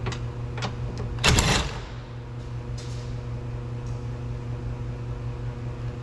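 Handling noises from taking off a car's side mirror: a few light clicks, then a brief loud rattle about a second in as the last 10 mm mirror bolt comes out and the mirror comes loose from the door. A steady low hum runs underneath.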